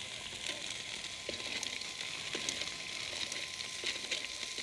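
Chicken drumsticks and burger patties sizzling on a foil-lined barbecue grill: a steady hiss with scattered small pops and crackles.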